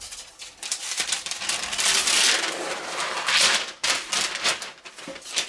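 Masking paper and painter's tape rustling and crackling as a speaker box is masked off, in uneven bursts that are loudest about two seconds and three and a half seconds in.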